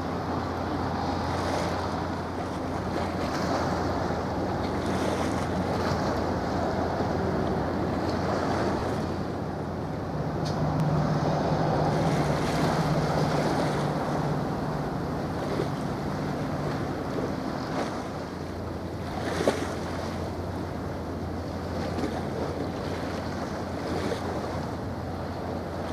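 Wind buffeting the microphone and harbour water lapping, over a steady low drone of ship engines. The drone swells for several seconds in the middle, and there is a single sharp tap about three-quarters of the way through.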